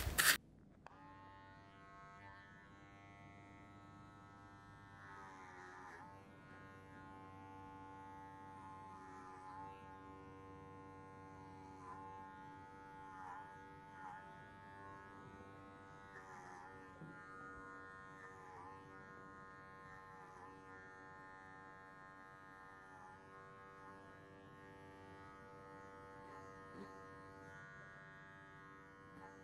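Electric hair clippers with a comb guard running with a faint, steady buzz while cutting short grey hair. The tone wavers briefly every few seconds as the blades work through the hair.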